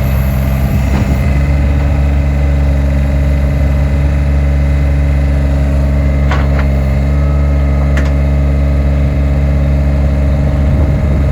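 John Deere skid steer's diesel engine running steadily at idle, with a couple of short clicks about six and eight seconds in.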